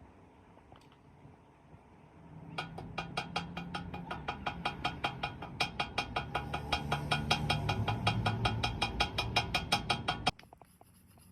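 A workshop machine starting up and running, with a low hum and a regular sharp tick about five times a second, cutting off suddenly near the end.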